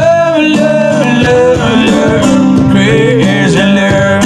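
Live amplified acoustic guitar playing: steady chords with a gliding melody line over them, heard through a small PA.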